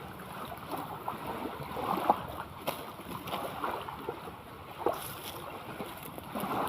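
Sea water lapping and splashing in small irregular slaps, with wind on the microphone.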